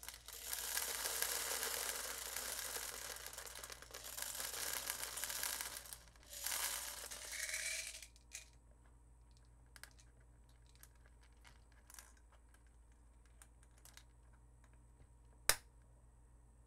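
Plastic airsoft BBs poured from a bottle into the plastic hopper of a GP807 box magazine: a rattling pour lasting about six seconds, a brief break, then a second pour of about two seconds. Small clicks follow, and one sharp click near the end.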